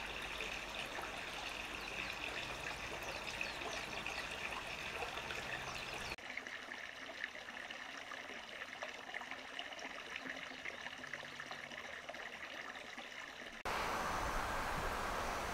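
Running water, trickling and splashing, in three separate recordings joined by abrupt cuts about six seconds in and near the end; the last one is louder and fuller.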